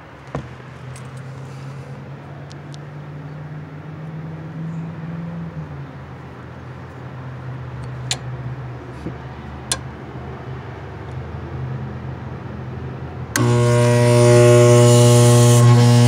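A steady low hum with a few sharp clicks, then about 13 seconds in a loud electrical buzzing hum starts suddenly and holds: the Goodman package unit's inducer draft motor energized, a motor judged to be bad.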